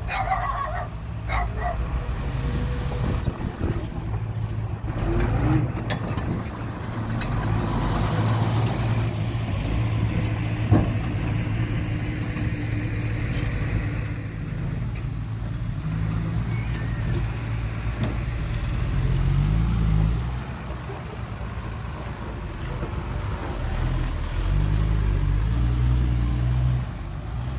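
Heavy diesel engine of earthmoving machinery running under changing load, revving up briefly a few times, with a single sharp knock near the middle.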